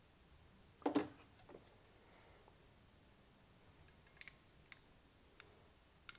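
Small hand tools clicking while a bullet connector is crimped onto a wire: a sharp click about a second in, a few light ticks around four seconds, and another sharp click at the end, from a wire crimping tool and wire stripper.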